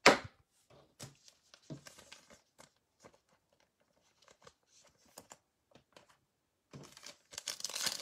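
Trading cards being handled: a sharp tap as a card is set down, then small clicks and slides of card stock. About seven seconds in, the crinkly wrapper of a Donruss Optic basketball card pack is torn open.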